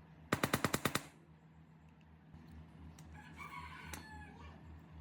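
A rapid burst of about eight sharp knocks, roughly ten a second, lasting under a second near the start. Later comes a fainter wavering call over a steady low hum.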